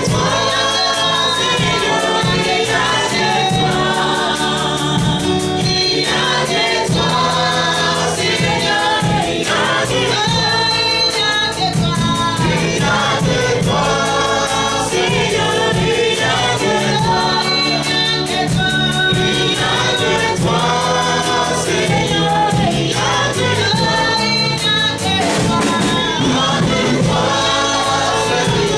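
Gospel worship song: a choir singing over instrumental backing with a steady beat.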